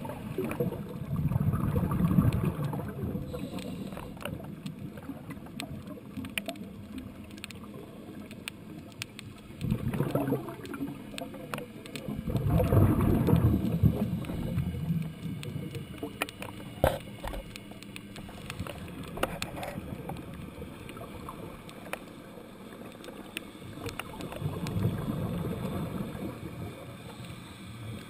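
Scuba diver's exhaled bubbles rumbling and gurgling in bursts a few seconds long, repeating with the breathing, heard muffled through a GoPro's underwater housing, with scattered faint clicks between.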